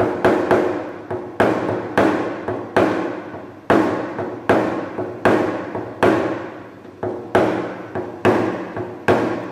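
A paintless dent repair hammer with a nylon face tapping a plastic knockdown tool against a car body panel. Sharp taps, about one a second with a few quick doubles, each with a short ring, knocking down high spots to refine the finish of a hail dent repair.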